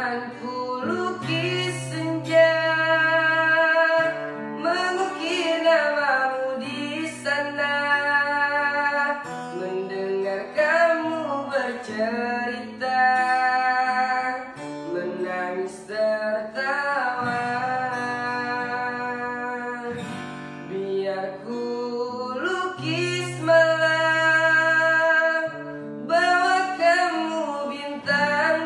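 A young man singing a ballad with long held notes, accompanied by an acoustic guitar.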